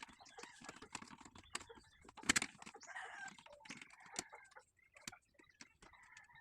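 Small clicks, taps and knocks of a tool and metal parts being handled while a portable butane gas stove is taken apart, with one sharper knock about two seconds in.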